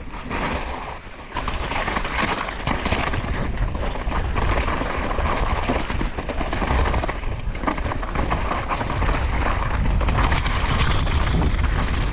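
Mountain bike descending fast over rough ground: constant wind buffeting on the microphone, with tyres grinding and the bike rattling over bumps and rocks.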